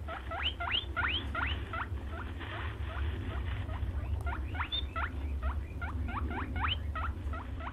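European brown hare squeaking: a rapid, unbroken series of short squeaks, each sweeping up in pitch, about four a second, over a low steady hum.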